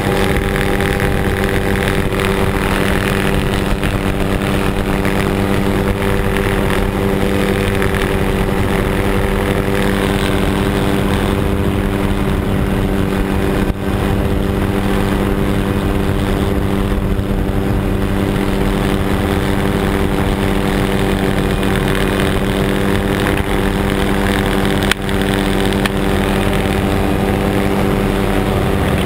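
Helicopter engine and rotor running steadily in flight, a constant loud drone with a steady hum.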